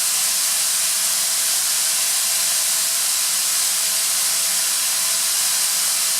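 Atlas Copco ZR315VSD oil-free rotary screw air compressor running, a loud steady hiss of rushing air with a faint constant whine beneath it.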